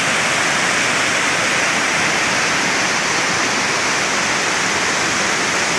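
Waterfall: water rushing steadily over the falls, an even, unbroken hiss with no change in level.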